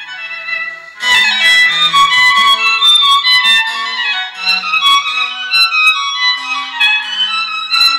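Music played through small loudspeakers driven by a home-built single-valve ECL82 amplifier. There is a brief lull about a second in, then the music comes in fuller, with pitched melody and sharp percussive hits.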